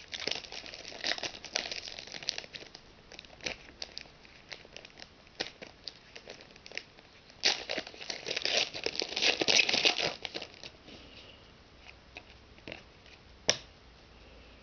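Foil trading-card pack wrapper crinkling and tearing as it is opened, in crackly bursts, densest about eight to ten seconds in. A single sharp click comes near the end.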